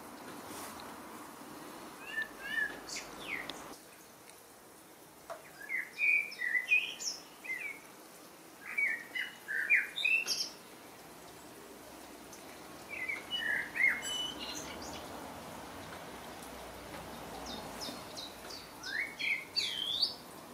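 A warbler singing in short phrases of quick, high, gliding notes, about five bursts spaced a few seconds apart, over a soft steady background hiss.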